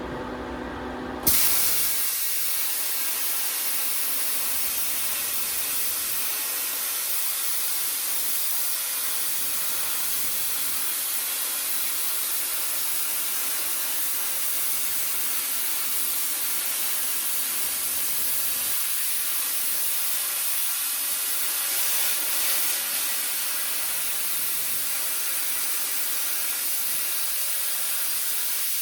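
A steady hiss of compressed air that starts suddenly about a second in and runs on without change, as from an air tool or spray gun in use.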